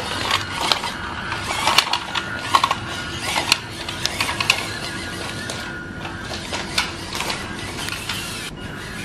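WPL C24 remote-control crawler truck driving over loose pebbles: irregular clacks and crunches of stones under its tyres, with its small electric motor and gears whirring. The clacking is thickest in the first half and thins out later.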